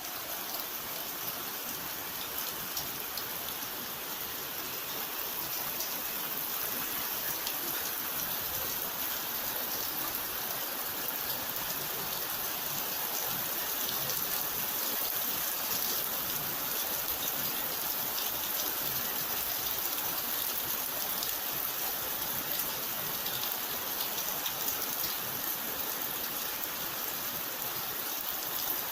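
Steady rainfall: a dense hiss of drops with scattered sharper drop ticks, swelling slightly a few seconds in.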